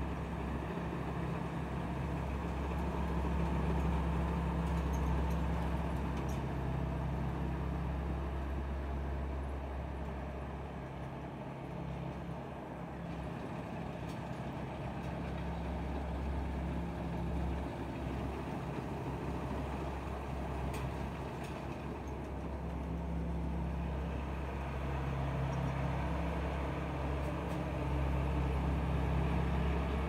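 Tamco All New Pro Z3000 combine harvester working in a rice field: its Isuzu 6BG1 six-cylinder diesel engine runs steadily under load along with the harvesting machinery. The sound grows and fades gently as the machine moves closer and turns away.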